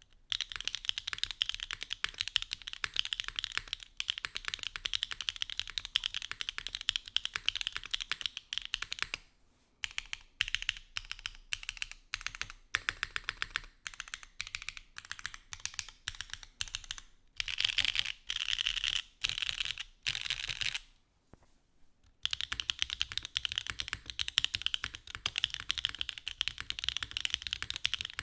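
Typing on a Mode Sonnet mechanical keyboard with Ghost Dragon switches, a POM plate and a copper bottom case, first in lattice mount. The keystrokes come in fast runs, thin out to separate presses in the middle, stop for about a second, then resume with the board in top mount.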